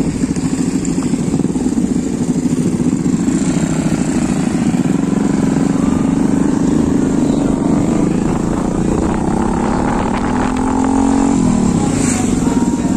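Motorcycle engine running steadily under way, heard from the rider's position; near the end its pitch drops as the throttle is eased off.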